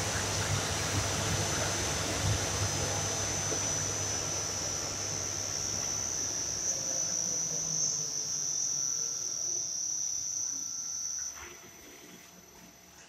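A 7.5 kW centrifugal cooling fan, driven by an inverter-fed electric motor, runs at full speed with a steady rush of air and a high-pitched whine. About eleven seconds in, the rush and the whine drop away sharply as the fan is switched off and begins to wind down.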